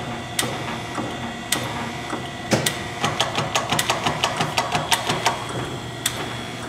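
Chevalier FSG-3A818 surface grinder running with a steady mechanical hum, with sharp clicks from its mechanism: a few spaced ones at first, then a quick run of about three to four a second in the middle.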